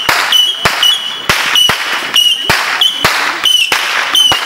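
Consumer fireworks going off on the ground in quick succession: sharp cracking bangs about three a second over a steady high whistle that dips briefly with each bang.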